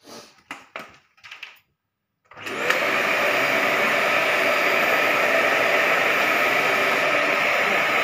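A few faint taps, then about two seconds in a Russell Hobbs 700-watt bagless cylinder vacuum cleaner is switched on: its motor spins up within half a second and settles into a loud, steady whir.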